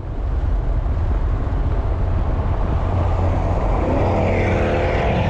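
Car engine running with a strong low rumble; about four seconds in its pitch climbs as it revs up, then holds.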